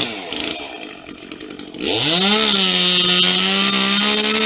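Chainsaw revving up sharply about two seconds in and held at a steady full throttle, then easing off at the end. Before the rise it runs fainter, at a lower, wavering speed.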